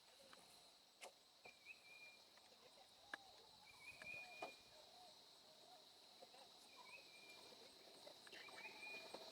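Faint forest ambience: a steady high insect drone, with a few short chirps now and then.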